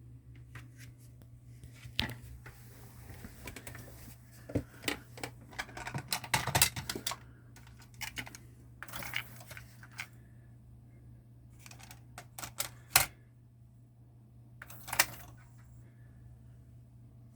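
Akai GX-9 cassette deck's tape transport clicking and clunking in irregular bursts as its controls are worked, over a steady low hum.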